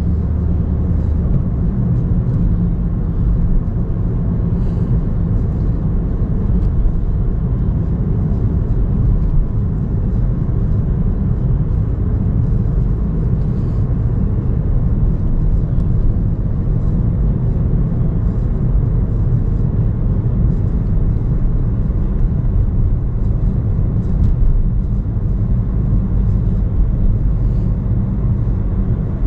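Steady low rumble of a moving vehicle, even in level with no breaks.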